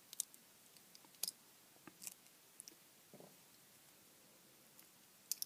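A few faint, scattered clicks and taps of a small screwdriver tip picking at a silicone-potted miniature LED lamp's circuit boards and metal base, with one soft thud about three seconds in.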